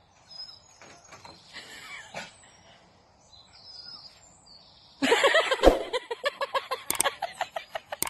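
Dog yipping excitedly in a rapid run of short, high calls, starting about five seconds in after a quiet stretch.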